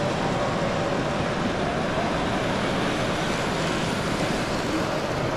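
Loud, steady background din of a busy exhibition hall.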